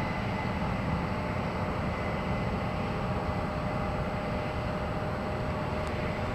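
Corn-harvesting machinery running steadily, a constant engine rumble with a faint steady whine.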